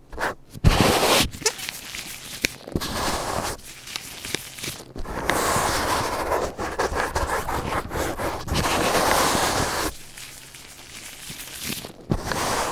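Close-miked ASMR trigger sounds: a scratchy, rustling noise with scattered sharp clicks, louder and steadier through the middle stretch.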